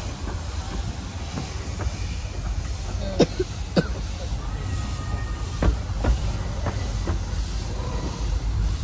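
Miniature-railway train wheels rumbling at low speed, with sharp clicks as they pass over rail joints and points, two loud ones about three and four seconds in, then more coming about every half second.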